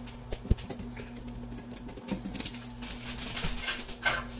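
Hand screwdriver backing a screw out of an old thermostat's plastic wall plate: small irregular scratching clicks and ticks, with a sharp click about half a second in and a few more rattles near the end.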